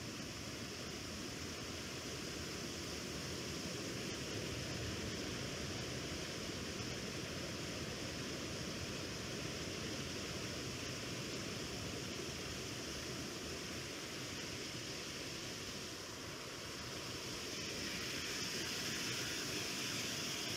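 Water of the Pyhäjoki river rushing over rocky rapids, a steady rush that grows louder and brighter near the end.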